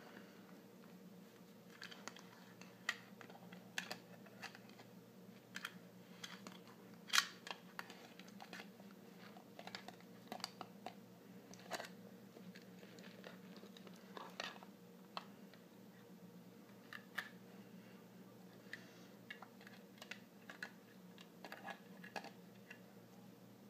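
A dog's teeth and tongue working at a plastic computer mouse: scattered faint clicks and taps of teeth on plastic, irregular, with one louder click about seven seconds in. A low steady hum runs underneath.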